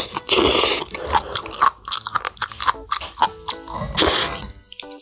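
Close-miked slurping and chewing of soft, stringy food, with several loud slurps, over background music.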